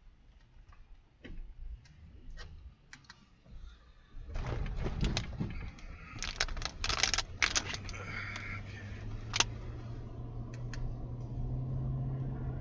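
Inside a moving vehicle: scattered sharp clicks, then about four seconds in a louder rushing noise starts with a flurry of clicks and knocks, while a low engine hum rises slightly in pitch toward the end.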